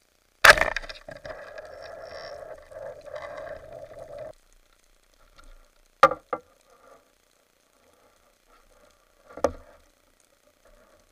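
Speargun fired underwater: a sharp crack about half a second in, followed by about four seconds of rushing, rattling noise that cuts off abruptly. Later come a few single sharp knocks, two close together about six seconds in and one more near the end.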